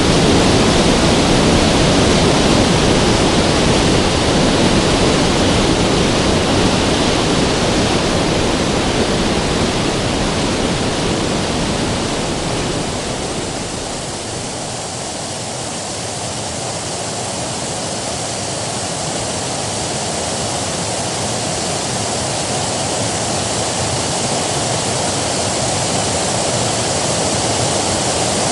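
River water rushing steadily. About halfway through, the deep part of the rush falls away and it eases a little, then gradually swells back.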